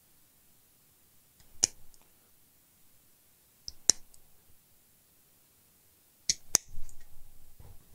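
A few sharp, short clicks, spaced a couple of seconds apart, from small parts or tools being handled at a workbench, with soft handling noise after the last two near the end.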